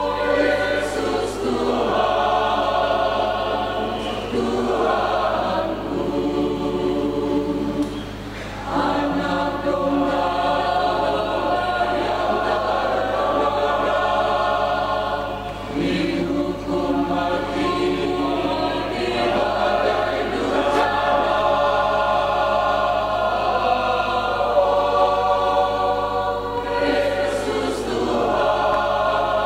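Mixed choir of men's and women's voices singing a hymn in long held phrases, with short breaks between phrases about eight and sixteen seconds in.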